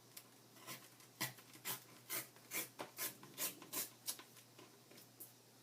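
A quick run of about eight short scraping strokes on paper, a little more than two a second, from about a second in to about four seconds in, with a few lighter scratches around them.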